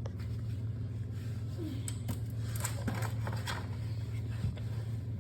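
Light clicks and rustling of hands unthreading an ATV's oil drain plug, over a steady low hum.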